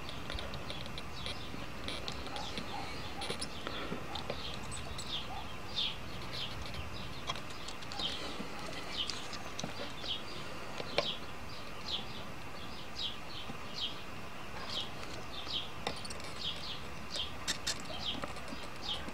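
Small birds chirping: short high chirps, one or two a second and coming more often later on, over a faint steady hum, with a sharp click about eleven seconds in.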